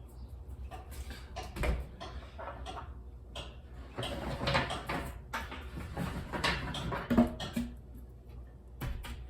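Irregular rubbing, scraping and knocking from handling things at a work surface, busiest in the middle, over a steady low hum.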